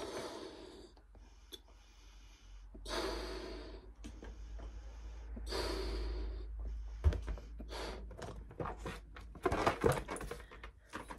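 A latex party balloon being blown up by mouth: three long breaths pushed into it, with breaths drawn in between, then a run of short clicks and rubbing as its neck is knotted.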